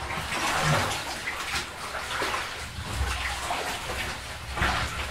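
Water sloshing and splashing as a caver moves backwards through a flooded, muddy cave passage, in irregular splashes with low knocks and bumps of body and gear.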